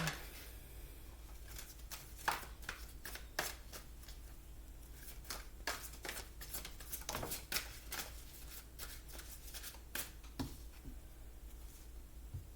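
Tarot cards being shuffled and handled by hand: a run of irregular quick card flicks and snaps that stops about two seconds before the end.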